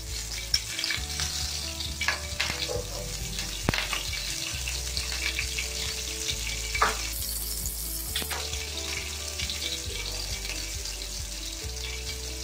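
Hot oil sizzling in a pan as cumin seeds and chopped green chillies fry in a tempering, with occasional sharp pops through the steady hiss.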